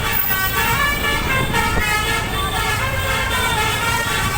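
A 12-trumpet 'basuri' telolet bus air horn playing a quick koplo-style tune of stepped, overlapping notes, over a steady rumble of engine and road.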